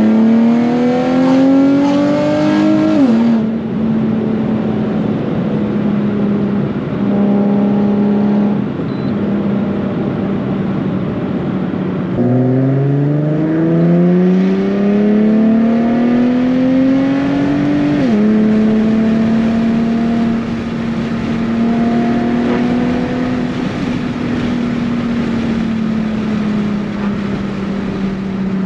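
Nissan 370Z's 3.7-litre V6 exhaust under hard acceleration: the note climbs to an upshift about three seconds in, then holds steady at cruising revs. About twelve seconds in, a second pull starts from low revs and climbs for about six seconds to another upshift, then the engine settles into a steady drone at cruising speed.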